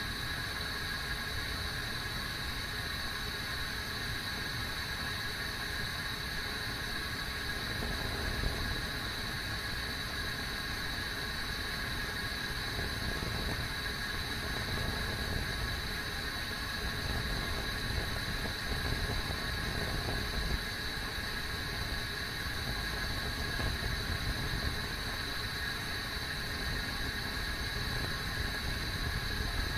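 Kettle heating water: a steady low rumble with a steady high-pitched whine over it.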